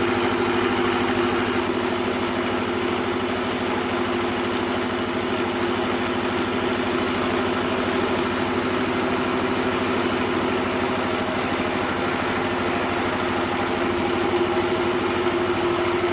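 Engine running steadily at a constant speed, powering the steel-cable winch that drags a log toward the sawmill carriage.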